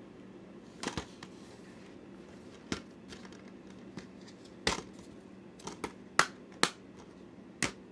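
Plastic DVD cases being handled and set down: a string of irregular sharp clicks and taps over a faint steady hum, bunched most closely about five to seven seconds in.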